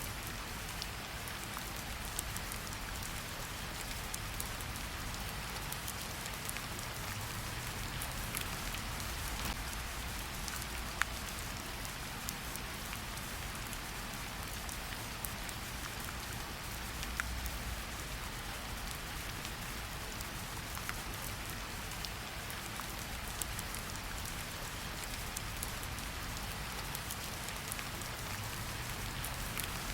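Steady rain falling in a forest, an even hiss with scattered sharp drip ticks, the clearest about eleven seconds in, over a low rumble.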